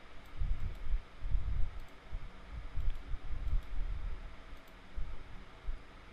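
A computer mouse clicking several times, faint and sharp, over irregular low muffled thumps.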